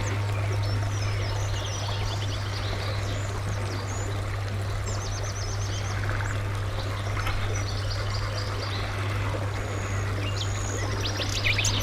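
Small birds chirping and singing in short scattered calls, over a steady rushing noise and a constant low hum.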